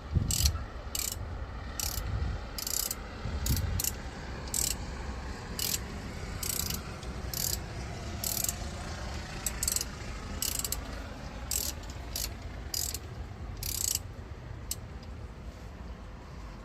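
Socket ratchet wrench clicking in short bursts, about one to two a second, as the brake caliper bolts are tightened.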